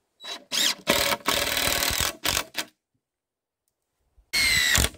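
DeWalt cordless drill boring a pilot hole into wood in short trigger bursts. The motor whine rises as it spins up, then it runs for about two seconds, and after a pause there is a last short burst with a steady whine near the end.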